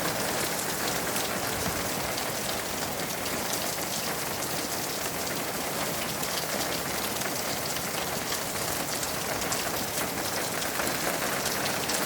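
Steady rain falling, an even hiss with many individual drops ticking through it.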